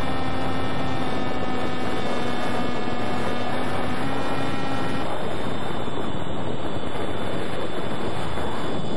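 Motor and propeller of a Penguin FPV plane whining steadily over a loud rush of wind on the onboard camera's microphone; about five seconds in, the motor cuts out and only the wind rush remains as the plane glides.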